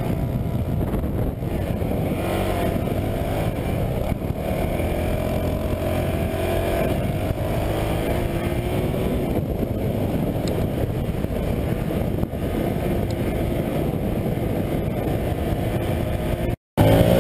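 Honda CRF450L's single-cylinder four-stroke engine running under load while riding through sand, its pitch rising and falling with the throttle, over wind noise on the camera microphone. The sound cuts out briefly near the end.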